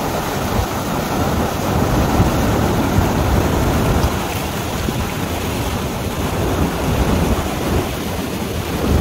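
Steady rumbling wind buffeting the microphone, its gusts rising and falling without a break.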